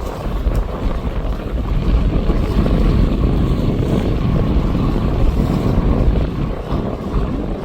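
Wind buffeting the microphone: a loud, rough low rumble with no clear tone, growing stronger about two seconds in and easing near the end.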